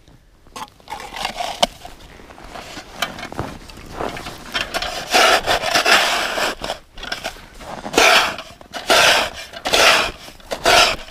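A small hand shovel scraping snow off the ice and dumping it over an ice-fishing hole where a tip-up is set. The scrapes are scattered and faint at first, then from about halfway through come as a run of louder strokes about a second apart.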